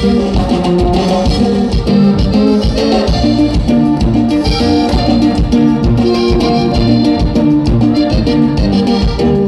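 A live band playing loudly through a stage PA. A sousaphone carries the bass line, with electric guitar, and a drum kit keeps a steady beat.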